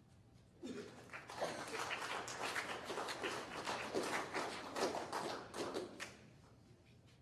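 Audience applauding: a small crowd clapping. It starts under a second in and dies away about six seconds in.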